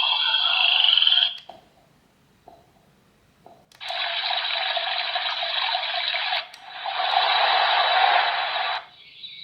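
Projection alarm clock's small built-in speaker playing its preset sounds one after another, each cut off as the next is chosen. It plays a hiss-like sound that stops about a second in, then near silence for about two seconds, then two more hissy clips back to back.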